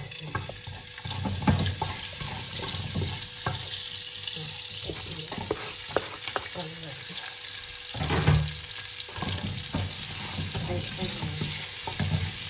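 Chopped garlic and red onion sizzling in hot oil in a nonstick pot. The sizzle swells about a second in as they go in, with a wooden spatula knocking and scraping as they are stirred.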